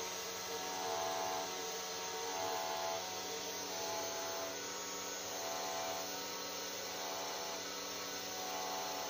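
A desktop CNC 3040 mill engraving a copper PCB: its stock 200 W spindle motor and the stepper drives run with a steady hum made of several held tones. Some of the higher tones fade in and out as the axes move.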